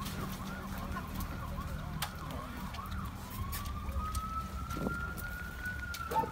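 Emergency vehicle siren sounding a fast warbling yelp. About three seconds in it switches to a slow wail that rises and then falls. A low steady hum runs underneath.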